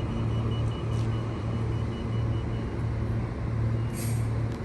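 Low pulsing hum of a stopped Queensland Rail electric train at a station platform, throbbing about every two-thirds of a second, with a short hiss near the end.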